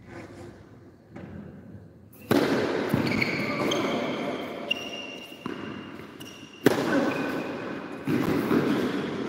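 Tennis ball bounced softly a few times on an indoor hard court, then hit hard with a racket about two seconds in. Rally play follows, with further sharp racket hits and high squeaks, all echoing in the hall.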